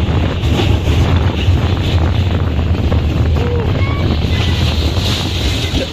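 Wind buffeting a phone's microphone on a moving amusement-park ride: a loud, low rushing that cuts off suddenly at the end.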